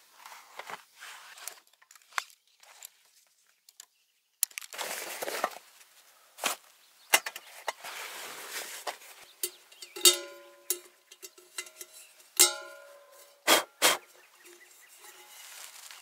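Rustling of a fabric stuff sack being handled, then several sharp metal clinks in the second half, some ringing on briefly, as the pieces of a stainless steel folding camp stove are set up and knocked together.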